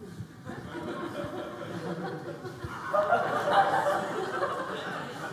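Lecture-hall audience laughing at a pun, the laughter growing loudest about three seconds in.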